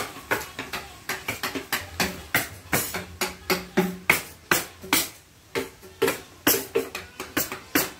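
Wooden mallet knocking a carving chisel into old teak, in quick irregular strikes of about two to three a second, each a sharp knock with a short woody ring.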